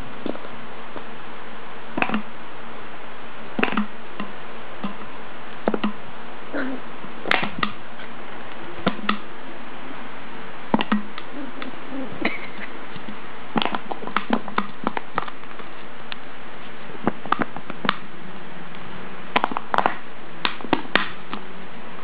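Plastic soda bottle clicking and crackling in irregular short knocks as a puppy bites and paws at it, over a steady hiss.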